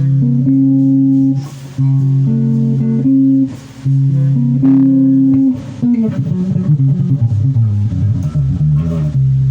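Bass guitar being played. It sounds three long held notes, each about a second and a half, with short breaks between them, then from about six seconds a quicker run of lower notes.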